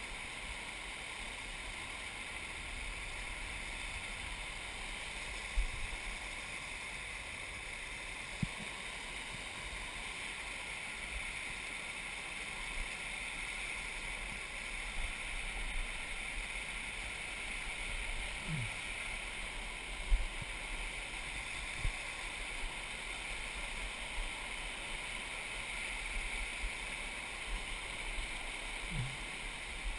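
Spring water rushing and splashing down a small cascade over mossy rocks, a steady rush with a few short low knocks, the loudest about two-thirds of the way through.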